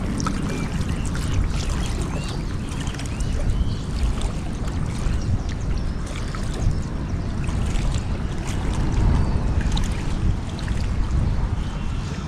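Steady low rumble of wind on the microphone beside the river, with scattered small clicks and a few faint, high, rising-and-falling chirps.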